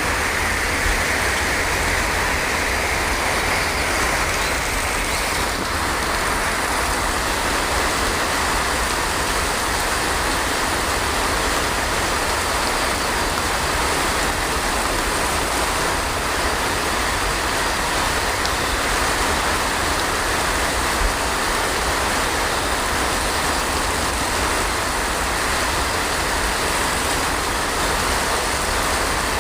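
Heavy rain falling steadily: a dense, even hiss of rain.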